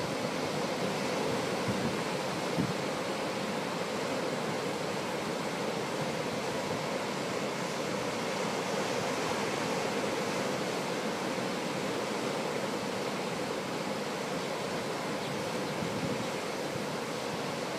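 Steady rush of ocean surf breaking on the shore, mixed with wind.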